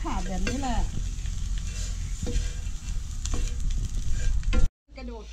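A metal ladle stirring and scraping whole crickets around a hot pan as they roast, with a light sizzle and scattered sharp scrapes and taps of metal on the pan. It breaks off suddenly near the end.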